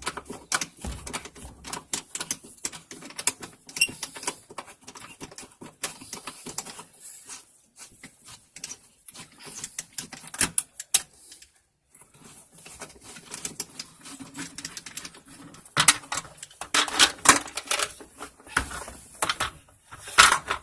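Irregular clicking, scraping and clattering of a screwdriver working the bolt out of a top-loading washer's agitator, with louder clunks of the plastic agitator being handled and pulled free near the end.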